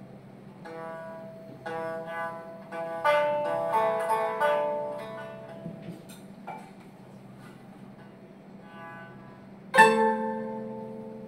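Koto and shamisen playing a slow, sparse passage of plucked notes that ring and fade. A busier phrase comes in the first half, then a quiet gap, then a single loud plucked chord near the end that rings on.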